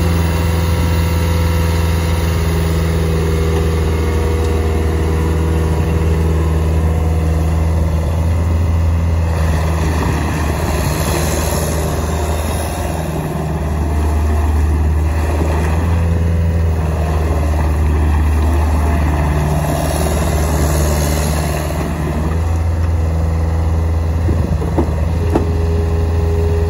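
Caterpillar 289C compact track loader's diesel engine running steadily as the machine drives and turns on its rubber tracks, with a steady whine over the engine hum. The engine note dips briefly twice, and a couple of sharp clanks come near the end.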